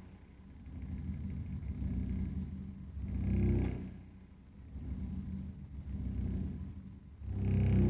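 Burnham Alpine condensing gas boiler running with a low, pulsing rumble that swells loud about three and a half seconds in and again near the end, falling back to a softer rumble in between.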